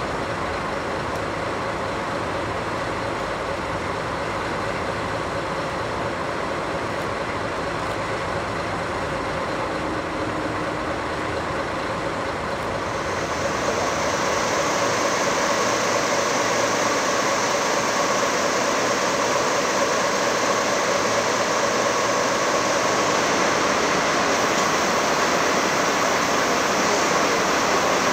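Diesel locomotives running steadily with a constant engine hum. About halfway through the sound changes to a slightly louder, hissier steady noise.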